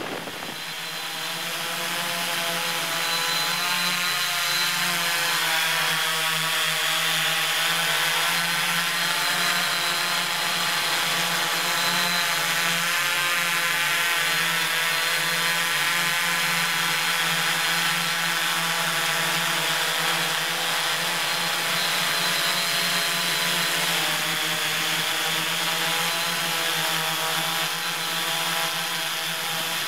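Multirotor camera drone's electric motors and propellers running steadily in flight, a continuous buzzing whine of several close, slightly wavering tones over a hiss.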